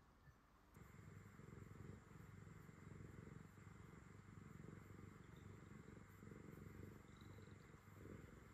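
Tabby cat purring faintly while it is petted, starting about a second in.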